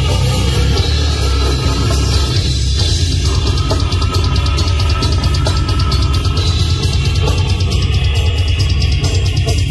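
An extreme metal band playing live: heavily distorted electric guitar and bass over fast drumming, with a vocalist growling into his microphone. The drumming turns into a fast, even pounding about three and a half seconds in.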